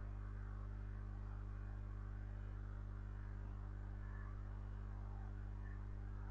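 Steady low hum with a faint, even hiss of room noise behind it.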